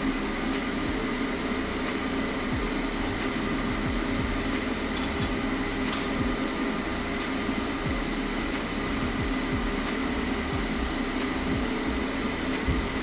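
AC TIG welding arc on aluminum, from an AHP AlphaTIG 201XD inverter welder, buzzing steadily with a faint high whine.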